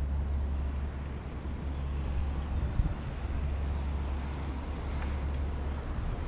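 Bicycle rolling over pavement, a steady low rumble, with car traffic passing on the street beside it. There is a brief knock about three seconds in.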